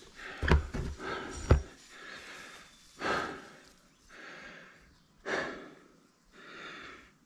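A man breathing hard from climbing exertion in the heat, with loud noisy exhales a second or two apart. Two dull thumps come in the first couple of seconds.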